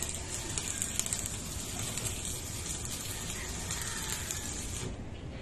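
Faint clicks and rustling of wiring and connectors being handled under a jeepney dashboard, over a steady high hiss that fades near the end.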